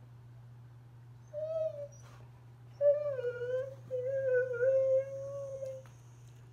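A husky 'talking' in protest at being bathed: a short whining call, then a longer wavering, howl-like vocalisation of about three seconds that slides up and down in pitch.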